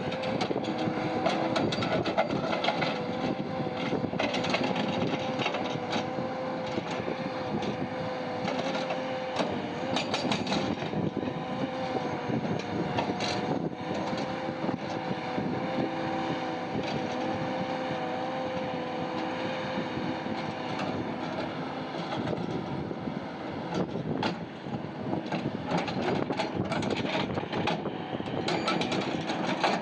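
Heavy mining machinery running steadily, with a steady whine that fades out about two-thirds of the way through and scattered knocks and clatter throughout.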